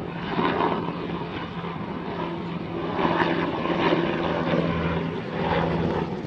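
Distant aircraft running: a steady low drone with a held hum that swells and fades a few times.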